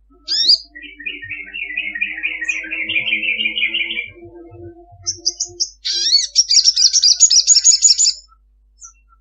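Olive-backed sunbird singing: a quick upward sweep, then a long fast trill of repeated notes for about three seconds, and after a short pause a higher, faster trill for about two seconds.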